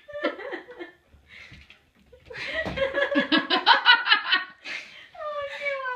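A person laughing in a quick run of pulses starting about two seconds in, followed near the end by a long falling vocal sound.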